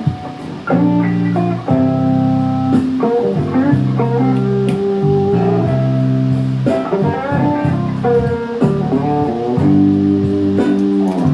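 Blues guitar music: chords and picked notes played steadily, with a bass line underneath.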